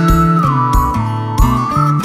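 Background music: a steady beat about every two-thirds of a second under a high, whistle-like lead melody that dips in pitch and rises again.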